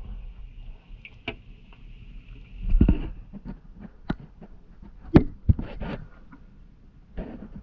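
Close handling noise from metal feeding tongs dangling a fish: scattered sharp clicks and knocks, with a louder rustling scrape about three seconds in and two more sharp knocks around five seconds in.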